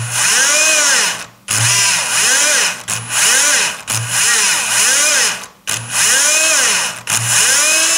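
Shimano Dendou-maru Beast Master 9000 electric fishing reel's motor running a programmed jigging pattern, winding line in stroke by stroke. About six short spells of motor whine, each rising and then falling in pitch, with brief pauses between them.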